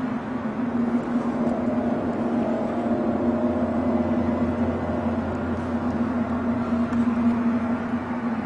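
A steady low droning hum with a held pitch, a deeper rumble joining it about a second in; its source is unidentified.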